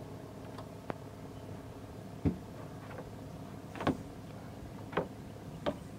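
Sharp knocks and bumps on a small fishing boat's deck, five of them spread over a few seconds, over a steady low hum.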